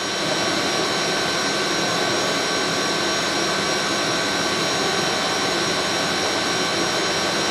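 Fryer MC-60 vertical machining center's spindle running free at a steady 6000 RPM: a constant high whine made of several fixed tones over an even hiss.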